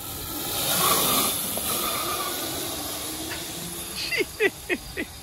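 Home-built electric go-kart, driven by a car alternator run as a motor through a Lebowski inverter, pulling away with a hissing whine that swells about a second in and then fades as it drives off. Near the end comes a quick run of five or six falling chirps, about four a second.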